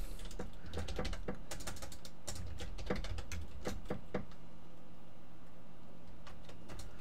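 Computer keyboard typing: irregular key clicks for about four seconds, then only a stray click or two, over a faint steady low hum.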